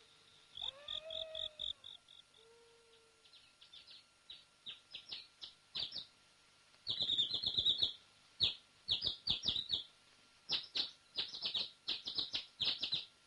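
An owl hoots softly at the start. Then small birds chirp in quick bursts, growing thicker from about three seconds in, like a night-to-dawn soundtrack.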